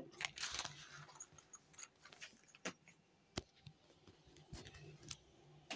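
Faint handling noise: scattered light clicks and rustles as things are picked up and moved, with two sharper ticks a little past the middle.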